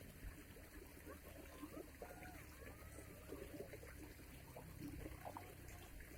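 Faint trickling water, with a few short, faint sliding tones over it.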